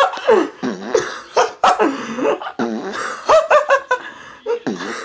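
Loud, hard human laughter: a run of short falling 'ha' bursts in quick succession.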